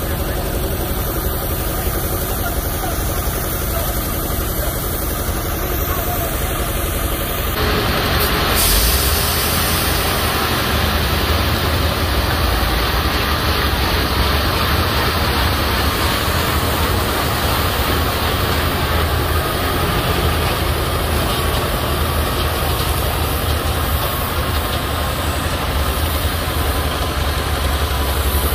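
Heavy truck's diesel engine running. About eight seconds in the noise rises suddenly and a deeper, heavier engine rumble takes over and holds steady.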